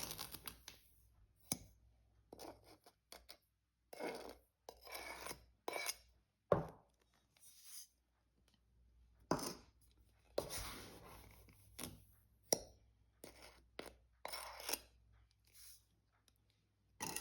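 Sugar being measured out for a pie: irregular short scrapes, rustles and light knocks of a cup scooping and pouring sugar and being handled against the bowl, with a short pause partway through.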